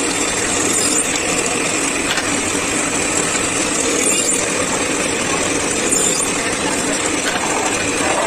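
Bench drill press running and boring holes in small wooden blocks: a steady machine noise with a few faint clicks.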